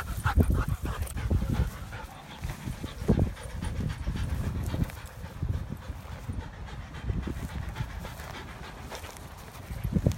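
A dog panting, with irregular low rumbling noise underneath.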